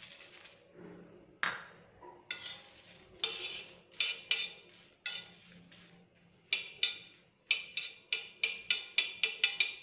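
Coriander seeds poured onto a flat tawa beside dried red chillies, then a steel spoon scraping and tapping across the dry griddle as the spices are dry-roasted without oil. The strokes come faster near the end, about three a second.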